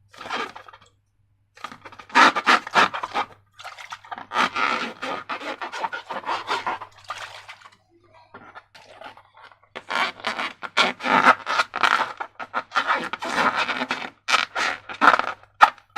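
Slime being squished and worked by hand: bursts of sticky crackling and clicking, with short pauses between them.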